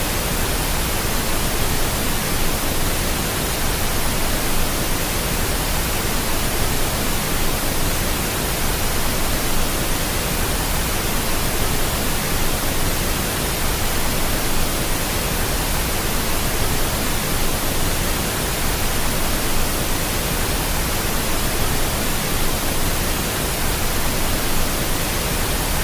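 Steady pink noise: an even, unchanging hiss spread across the whole range of pitch, with no tones or events in it.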